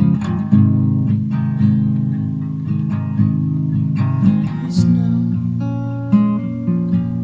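Instrumental music on strummed acoustic guitar, with chords struck in a steady rhythm over sustained low notes.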